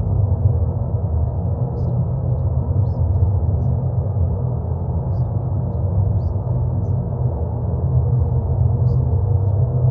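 Steady deep droning noise, heavy in the low bass and dull on top, the masking noise bed of a subliminal affirmation track. A few faint, brief high ticks are scattered through it.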